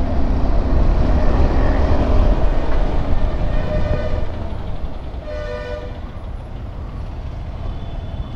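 A KTM 390 Adventure's single-cylinder engine and wind make a low rumble while riding slowly in city traffic. A vehicle horn honks faintly near four seconds in, then louder for about half a second just after five seconds.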